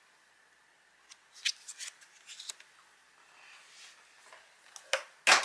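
Tarot cards being handled: a few soft swishes and light taps as a card is slid off a deck and laid down, then two sharper clicks near the end.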